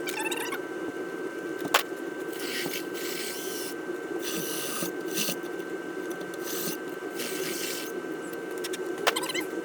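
Several short rubbing strokes against a surface, with a sharp click about two seconds in and another near the end.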